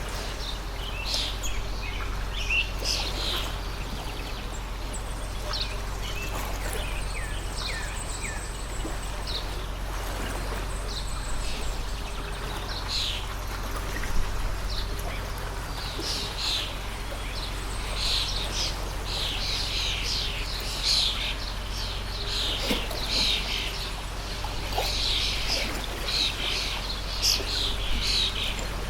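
Many small birds chirping and calling over a steadily trickling stream, the chirping getting busier in the second half.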